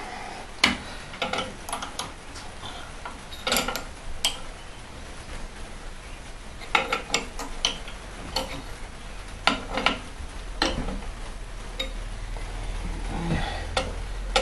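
Irregular light metallic clicks and clinks from a steel bar and fittings being handled on a homemade test rig, as the bar is worked against the threaded rod that carries a dial spring balance. A low hum grows in the last few seconds.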